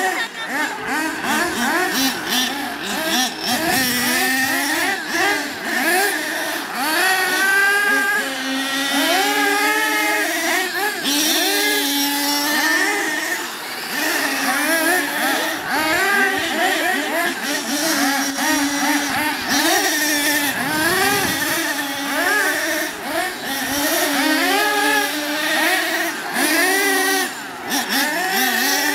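Radio-controlled cars racing on a dirt track, led by a nitro truggy's small glow-fuel engine revving up and down, its pitch rising and falling with each burst of throttle.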